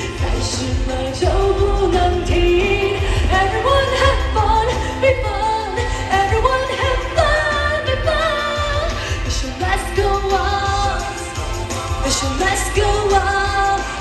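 Pop song performed live through a concert sound system: a singer's voice over the band, with a strong, steady bass line.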